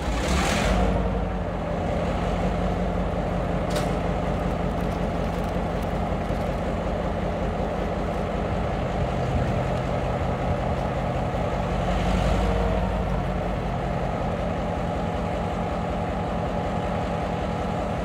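Diesel-electric locomotive engine running with a steady low drone. A short burst of air hiss comes just after the start and a softer one about twelve seconds in, with a sharp click near four seconds.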